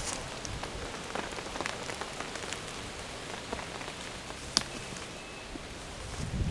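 Steady rain falling in woodland, an even hiss with scattered individual drops ticking close by and one sharper drop about four and a half seconds in.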